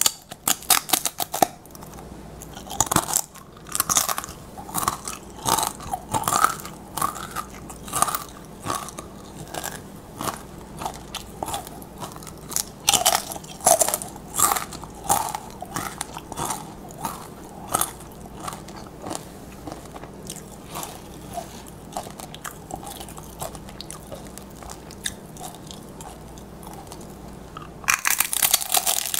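Crisp tortilla chips being bitten and chewed: a run of sharp crunches, dense with each fresh bite about a second in and near the end, and sparser chewing crunches between.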